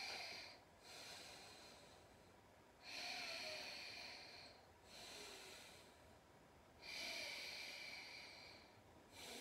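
Faint, slow, deep breathing in a yoga pose: three full breaths, each in-and-out lasting about four seconds.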